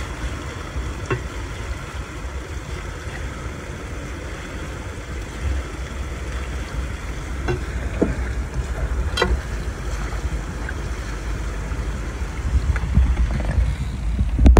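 Floodwater draining into a just-unclogged storm drain: a steady rushing of water over a constant low rumble, with a few faint clicks.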